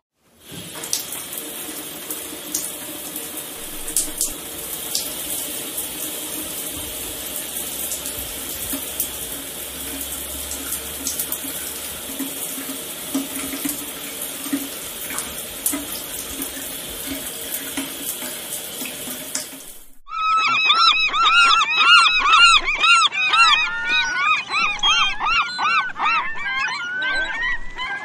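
Shower running: a steady hiss of spraying water that stops suddenly about twenty seconds in. Then a flock of seagulls calling, many repeated rising-and-falling cries overlapping.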